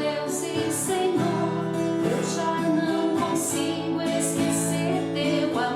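A Christian song with strummed acoustic guitar, with a voice singing held notes.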